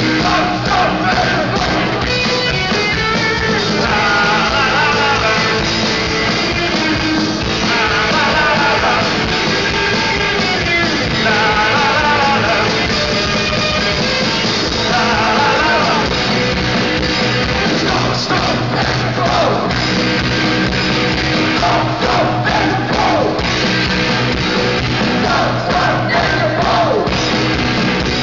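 Punk rock band playing live: electric guitars, bass and drums with the singer's shouted vocals over them, heard from within the crowd.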